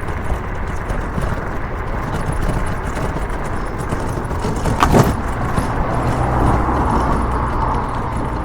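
Steady road and engine noise of a vehicle moving along a road, with a sharp click about five seconds in and a low hum coming in just after.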